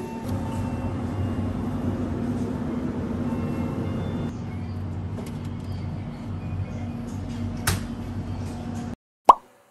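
Convenience-store ambience: a steady hum with one constant low tone under general shop noise. A sharp click comes a little before the end, then the sound cuts off abruptly to silence, broken by one short, loud sound.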